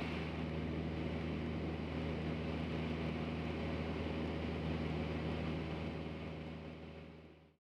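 Steady drone of an aircraft's engines heard from inside the cabin, a low hum with a rushing hiss over it, fading out about seven seconds in.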